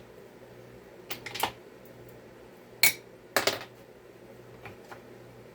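Metal tools and chainsaw parts clinking and clattering on a workbench: a few light knocks about a second in, one sharp clank near the middle, then a short rattle right after.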